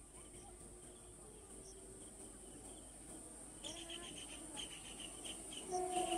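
Insects, crickets, in a steady high-pitched chorus, with birds chirping repeatedly from about halfway through and a short lower-pitched call near the end.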